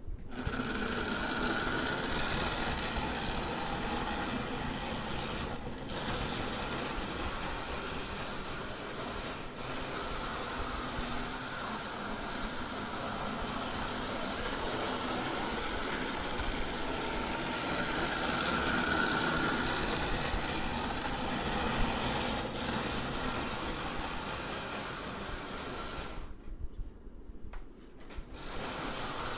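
1939 Marx O-scale toy electric locomotive running with its train on the track: a steady whir of its small electric motor and the running noise of the wheels on the rails. The higher part of the sound drops away for about two seconds near the end.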